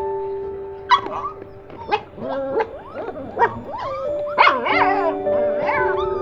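Young puppies whining and yelping in many short, high cries that bend up and down in pitch, starting about a second in. Background music with sustained tones plays under them.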